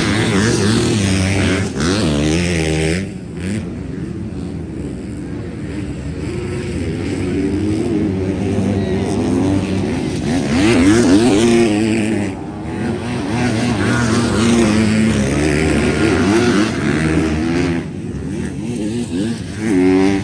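Several MX2 motocross bikes racing, their engines revving up and falling back as they shift through the gears, the pitch rising and dropping again and again as riders pass. The engines are loudest about halfway through and again a little later.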